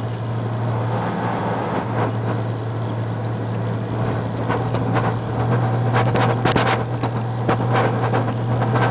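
Fire engine running steadily on the road, heard from inside the cab as a constant low drone with road noise. From about five seconds in, a run of sharp clicks and knocks joins it.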